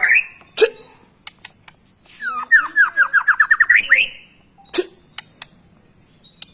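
White-rumped shama (murai batu) singing a quick run of about a dozen short, even notes that sweep sharply upward at the end, with scattered sharp clicks and high ticks around it.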